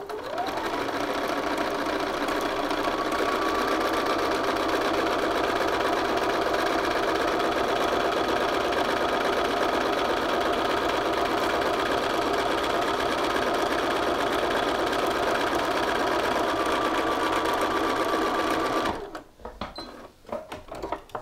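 Bernina sewing machine stitching at a steady speed, basting across the raw edge of a shirt collar; it stops about two seconds before the end, and a few light clicks follow.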